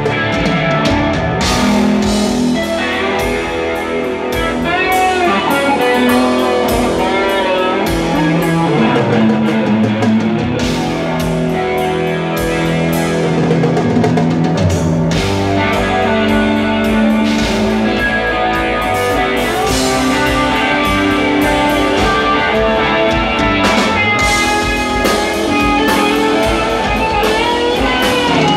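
Live rock band playing loud, heard from the audience: an electric guitar leading, with sliding lines, over electric bass and a drum kit.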